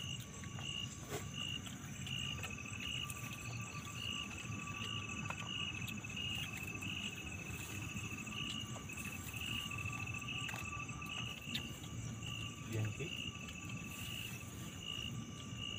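Insect chorus of crickets calling steadily. One sounds a pulsed high chirp about one and a half times a second over a continuous high trill, with other steady insect tones above and below.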